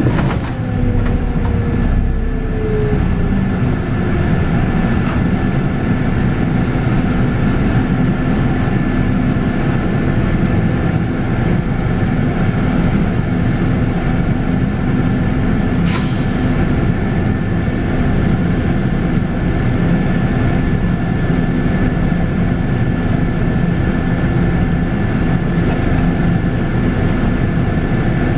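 Scania K280UB bus heard from on board under way, its 9.3-litre five-cylinder Scania diesel and ZF Ecomat six-speed automatic running steadily, with a steady high whine. A tone falls in pitch over the first few seconds, and a single sharp click comes about halfway through.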